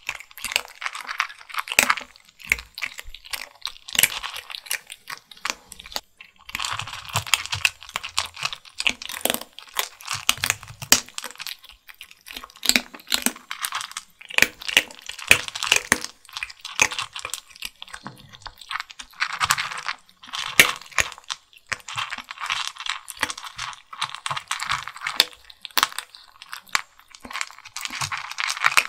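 Two kittens chewing dry kibble: loud, crisp crunching and clicking that comes in bouts with short pauses between.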